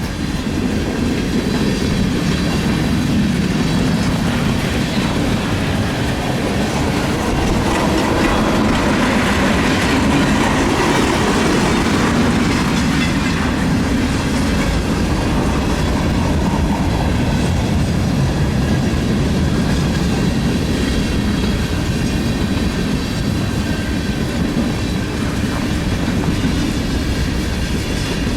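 Freight cars of a long CSX freight train rolling past at slow speed under a slow order, steel wheels clicking over the rail joints with a steady rumble.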